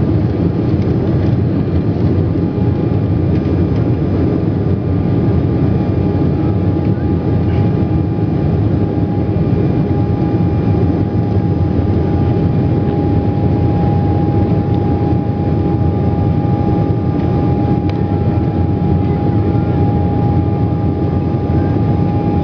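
Jet airliner's engines and airflow heard from inside the passenger cabin during the climb after take-off: a steady, loud rushing noise with a steady whining tone that grows stronger about a quarter of the way in.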